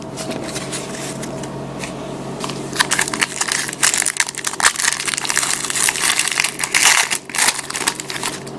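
A trading-card pack wrapper being torn open and crumpled: a dense run of crinkling and crackling starts about three seconds in and lasts several seconds, over a faint steady hum.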